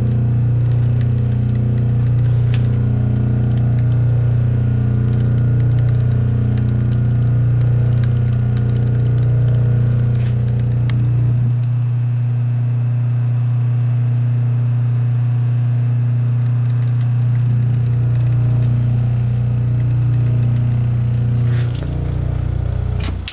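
Old General Electric electric motor running with a steady, loud hum that beats slowly, swelling about once a second. Near the end there are a few handling knocks and the hum drops away.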